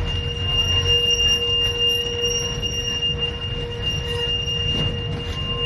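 Wooden-bodied tram running, a steady high-pitched whine held over a low rumble.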